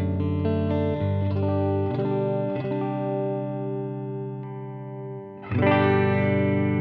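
Electric guitar played through an AmS Hurricane 20 combo amplifier: held, ringing chords that change every second or two, fading a little before a loud new chord is struck about five and a half seconds in.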